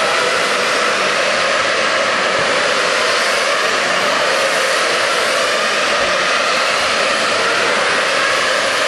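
A loud, steady rushing whoosh with a faint wavering whine inside it, like a fast-spinning motor or blower.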